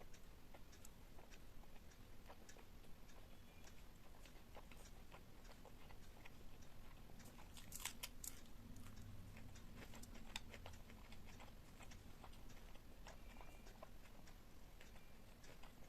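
A person chewing and biting food close to the microphone: soft, scattered wet clicks and crunches, with a louder crunchy bite about eight seconds in.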